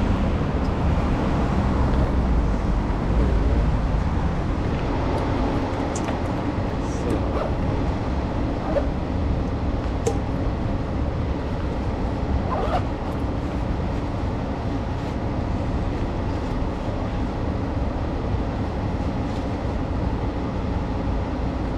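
Steady street traffic noise, mostly a low rumble of passing cars, with a few small clicks and rustles from a backpack being handled close by.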